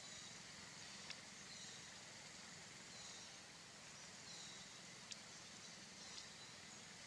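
Quiet outdoor ambience with a few faint, high, short chirps spread through it and three sharp clicks.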